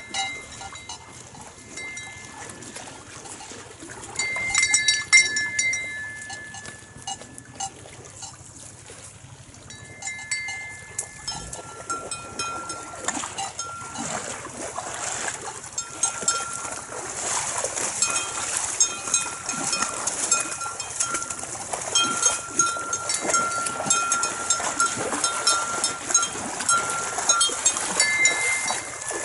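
Nguni cattle wading and drinking in a shallow lake, water sloshing around their legs. High steady ringing tones come and go throughout, with a louder burst about five seconds in.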